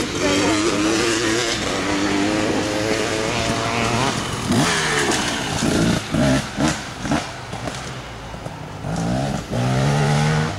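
Off-road racing dirt bike engines revving hard, their pitch climbing and dropping repeatedly as riders shift and pass on a dirt trail. There is a strong rising rev near the end.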